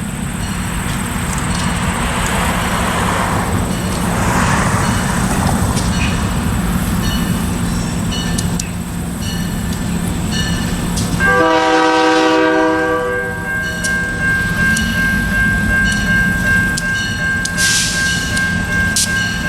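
Diesel freight train passing, its locomotive engines running and the wheels clicking steadily over rail joints. About eleven seconds in the locomotive horn sounds once for nearly two seconds, and a steady high-pitched tone holds on after it.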